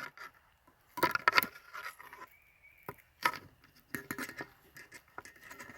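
Expandable wire loom sleeving being handled and pushed back on itself over a power cable: short crackles and clicks in small clusters, with a single sharp tap near the middle.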